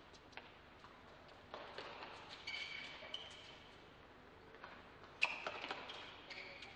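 Tennis rally on an indoor hard court: a series of sharp pops of the ball off the racket strings, the loudest about five seconds in, with brief high squeaks of shoes on the court surface.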